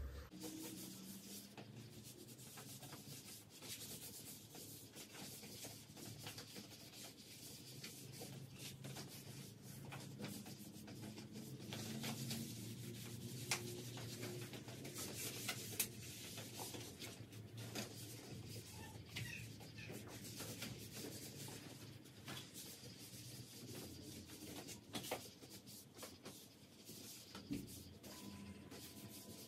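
Rubbing and scraping by hand, with scattered light clicks and a couple of sharper knocks, over a faint low hum.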